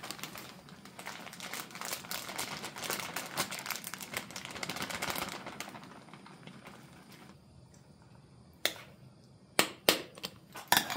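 Plastic packet of shredded mozzarella crinkling and rustling as the cheese is shaken out into a pot, for the first five or six seconds. A few sharp taps follow near the end.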